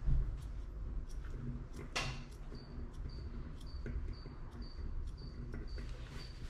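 Straight grooming shears snipping dog hair while rounding off a paw: irregular short, sharp snips, one louder about two seconds in.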